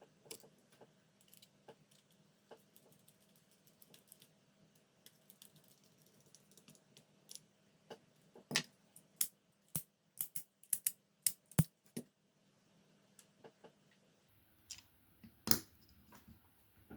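Scattered small clicks and taps of plastic parts being handled as a knob is fitted onto a 3D-printed rotary switch, with a quicker run of sharp clicks about halfway through.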